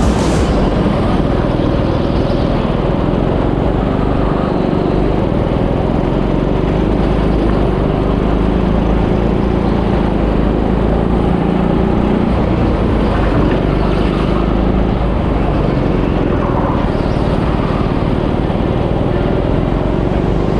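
Go-kart engines running steadily as the karts race, heard from on board one of them.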